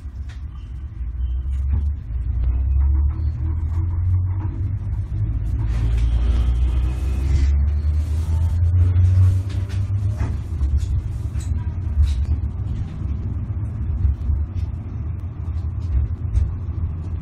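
Sapporo streetcar heard from inside the car: a low rumble of wheels and traction motors that swells over the first few seconds and then runs steadily. Scattered clicks come through, with a faint rising whine around the middle.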